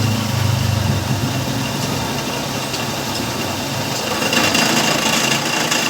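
A motor running steadily; about four seconds in, a harsher, higher-pitched noise with a thin whine joins it.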